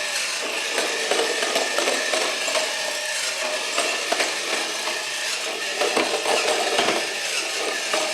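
Small battery-powered motor and gear train of a 3D-printed bump-and-go toy robot running, a steady rattling whir dotted with small clicks.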